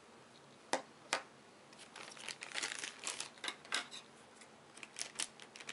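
Thin plastic packaging bag crinkling and rustling as a pre-painted plastic miniature is worked out of it, with two sharp clicks about a second in and a few more near the end.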